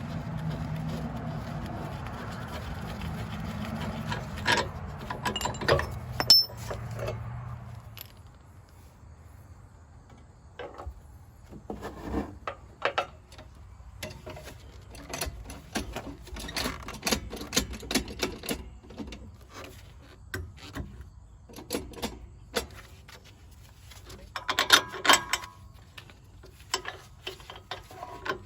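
Hand tools working on a truck's front shock mount: metal wrenches and sockets clinking, knocking and scraping in irregular short bursts, with a steady low hum under the first several seconds.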